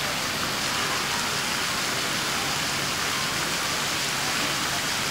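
Fountain jets arcing into a round basin, a steady splashing of water falling onto water.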